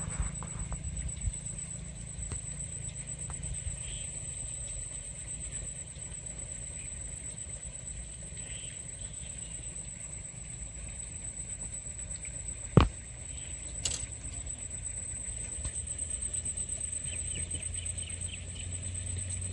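Outdoor riverbank ambience: a low rumble like wind on the microphone and a steady high-pitched whine, with one sharp knock about thirteen seconds in.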